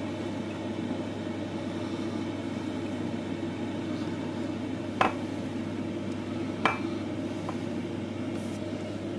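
Electric kettle heating toward the boil: a steady rushing noise with a low hum. Two sharp clinks sound about a second and a half apart, around the middle.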